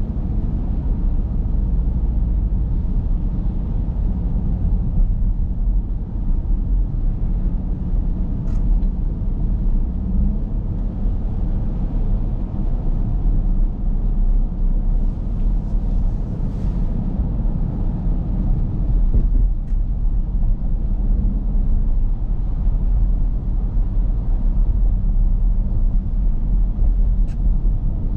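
Steady low rumble of road and engine noise inside the cabin of a 2023 Dodge Durango R/T with its 5.7 L Hemi V8, cruising on a wet highway, with a few faint ticks.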